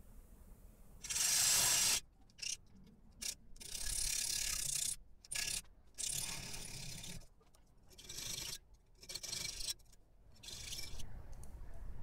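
Hand file scraping back and forth across flat steel bar stock clamped in a vise: about half a dozen long strokes of roughly a second each with a few short scrapes between, stopping near the end.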